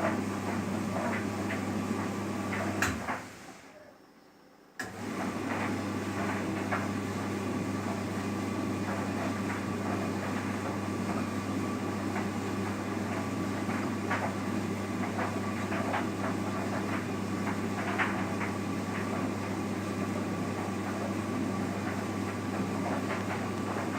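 Simpson vented tumble dryer running: a steady motor hum and drum rumble with scattered light ticks and knocks from the load tumbling. About three seconds in there is a click, the sound dies away for a moment, and then it comes back suddenly.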